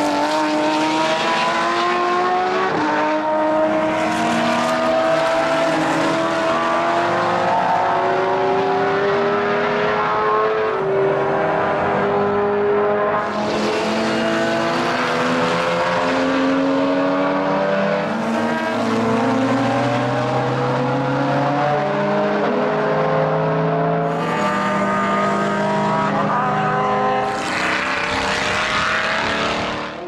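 Several race car engines at full throttle as a line of cars accelerates past and away, their notes climbing through the gears and dropping back at each upshift, several overlapping at once.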